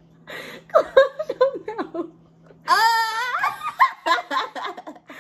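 Women laughing in short, choppy bursts, with a high-pitched squeal near the middle.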